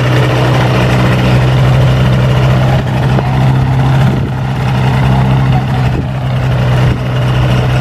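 Ultralight aircraft engine and propeller running steadily as the plane taxis slowly, a loud, even engine hum.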